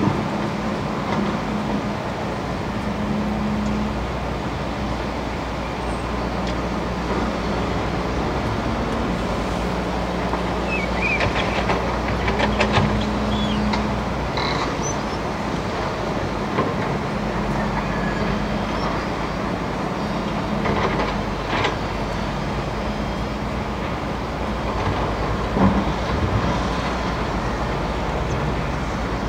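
Hydraulic crawler excavator's diesel engine running under working load, its note rising and falling as the arm digs and swings, over the rush of river water. A few sharp knocks about midway and near the end, as the bucket works among riverbed stones.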